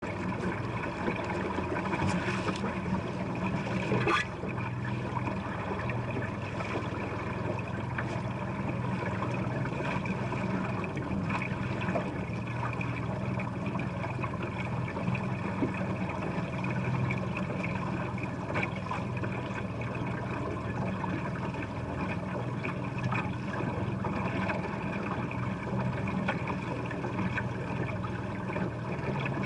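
Boat motor running steadily on the water, with a few sharp knocks in the first seconds, the loudest about four seconds in.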